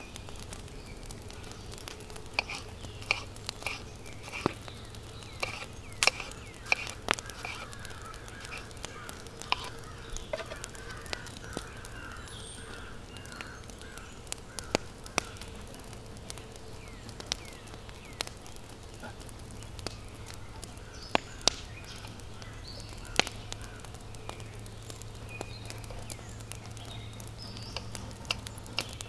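Wood campfire crackling with irregular sharp pops, while birds call now and then in the woods.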